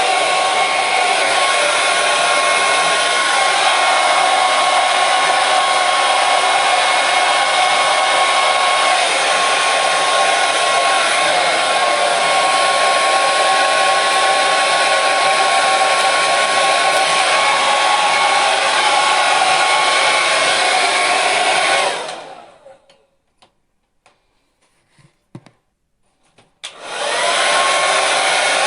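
Electric hair dryer blowing with a steady whooshing hum. About two-thirds of the way through it winds down over a second or so. A few seconds of near silence with faint clicks follow, then it starts up again suddenly near the end.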